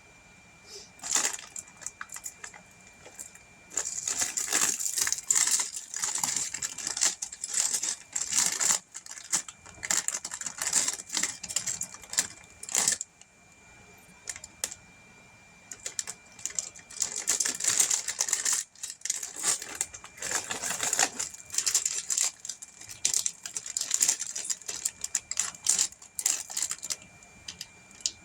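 Plastic Lego pieces clicking and rattling as they are handled and pressed together, in quick irregular bursts with a pause about halfway through.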